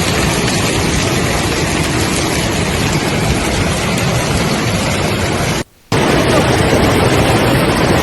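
Heavy hailstorm: a dense, loud roar of hailstones pounding down. It cuts out abruptly for a moment about three-quarters of the way through, then resumes just as before.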